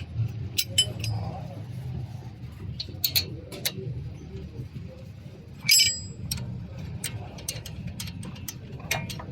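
Irregular sharp metal clinks and taps of hand tools and brake parts being handled during a disc brake pad change, with the loudest clink about six seconds in, over a steady low workshop hum.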